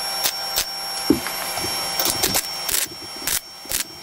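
Lincoln 140HD flux-core wire-feed welder arc crackling with sharp spatter pops while tack-welding thin sheet-metal body panels together. The steady crackle stops about three seconds in, followed by a couple of short pops.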